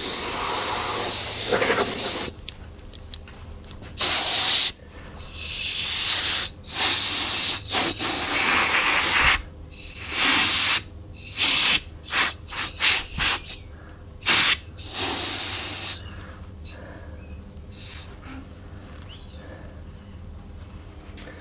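Compressed-air blow gun hissing in bursts as it blows loose sand out of a greensand mould cavity. There is a long blast at first, then a quick run of short puffs in the middle, and the air stops about three-quarters of the way through.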